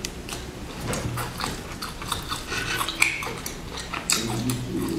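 Close-miked chewing of a crunchy sesame-coated chocolate sandwich cookie: a steady run of small crunches and clicks.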